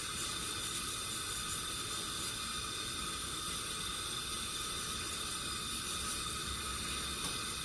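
Stove burner running with a steady hiss.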